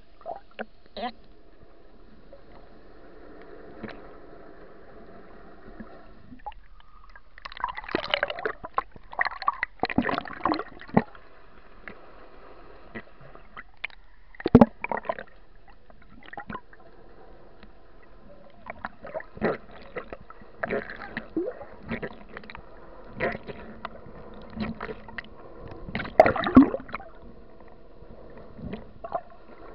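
Underwater sound picked up by an action camera in its waterproof housing: a steady hum, then irregular clusters of bubbling, clicks and knocks, loudest about a third of the way in, at the middle and near the end.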